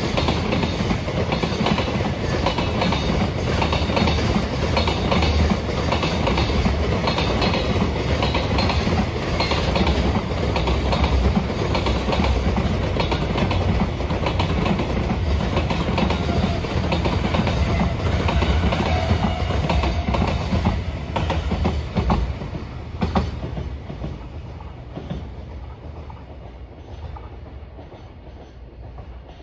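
Freight train wagons rolling past, wheels clattering rhythmically over the rail joints. The last wagons go by with a few sharp clanks a little after the two-thirds mark, and the sound then fades away as the train leaves.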